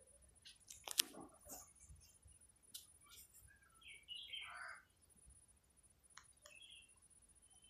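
A chicken's short call, falling in pitch, about four seconds in, among a few scattered sharp clicks, the loudest about a second in.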